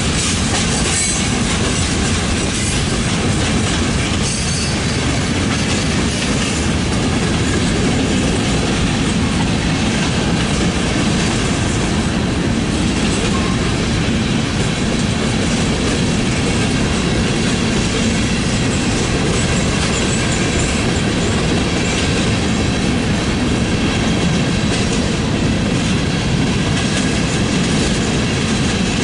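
Mixed freight cars, covered hoppers and centerbeam flatcars, rolling steadily past close by: a loud, continuous rumble of steel wheels on rail with clickety-clack over the rail joints.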